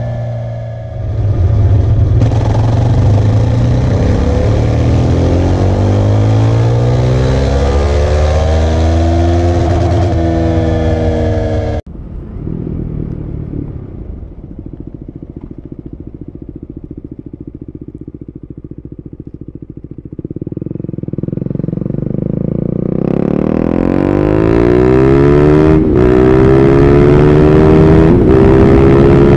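Husqvarna Vitpilen 401 single-cylinder motorcycle engine. First a dyno pull, the revs climbing steadily for about ten seconds before cutting off suddenly. Then, heard from the saddle, it runs quietly for a while and accelerates hard with rising revs, with a quick gear change near the end.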